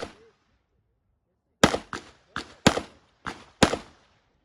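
Glock 19 9mm pistol fired from inside a car: one shot at the very start, then after a pause of more than a second, a quick string of about five shots.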